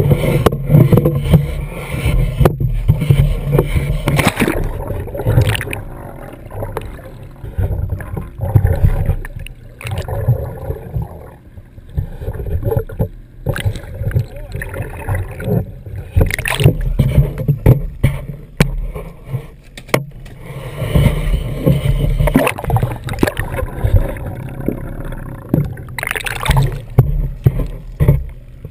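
Water splashing and sloshing around a camera dipped under the sea's surface, with many sharp knocks and a steady low rumble. The sound goes muffled and gurgling while the camera is underwater through the middle, and is brighter and splashier at the start and again a little before the end.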